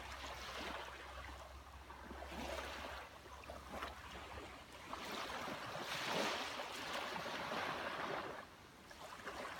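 Small sea waves washing onto the shore, the hiss of the surf swelling and falling back in washes, fullest about six seconds in.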